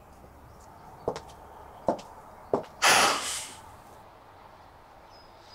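Quiet outdoor background with a few faint clicks, then, about three seconds in, a short loud breathy hiss like a sharp exhale through the nose.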